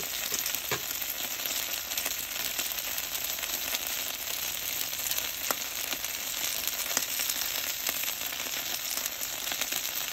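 Thick-cut bacon on jalapeño poppers sizzling on a flat-top griddle: a steady frying hiss with scattered pops.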